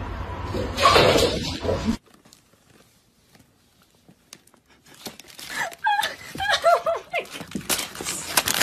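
Sound from a video game on a television, cut off abruptly about two seconds in. Then a cat rummages with its head in a plastic chip bag: crackling and rustling, with several short rising-and-falling vocal sounds over it in the second half.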